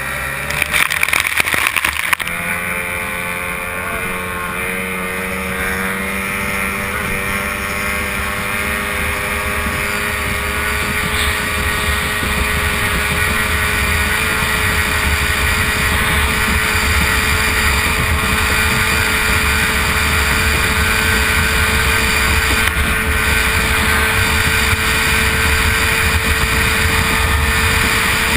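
Racing outboard motor of an A-Stock hydroplane running at full throttle, heard onboard with rushing wind and water. Spray splashes over the boat in the first two seconds, then the engine note climbs over several seconds and holds steady.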